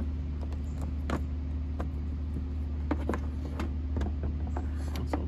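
Scattered light clicks and taps of a plastic LED fog-light pod and its bracket being handled and fitted into the bumper opening, over a steady low hum.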